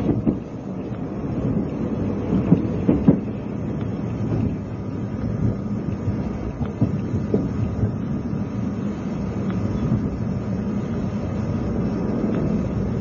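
Running noise heard inside a JNR 20-series sleeper coach: a steady low rumble of the train under way, with a few sharp knocks of wheels over rail joints about two and a half to three seconds in.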